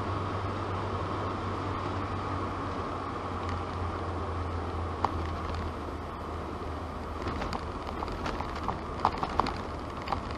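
Opel Kadett C 2.0E's 2.0-litre CIH four-cylinder engine droning steadily at cruise with tyre and road noise, heard inside the cabin. A few sharp clicks come in the second half, the loudest of them near the end.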